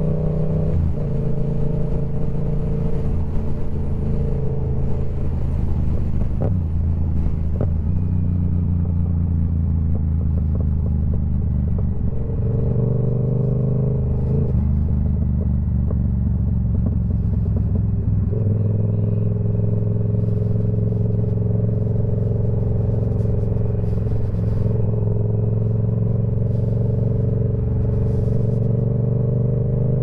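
Yamaha R7 engine running through a TOCE full-system exhaust at fairly steady revs. The pitch steps abruptly a few times: about a second in, around twelve seconds and around eighteen seconds. A couple of brief sharp ticks come a little past six and seven seconds.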